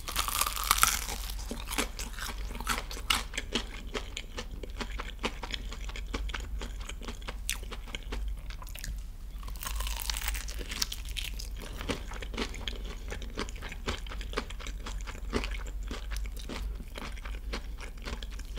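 Close-miked crunching and chewing of a crispy fried chicken drumstick dipped in cheese sauce: two crunchy bites, one right at the start and one about ten seconds in, each followed by steady crackly chewing of the fried crust.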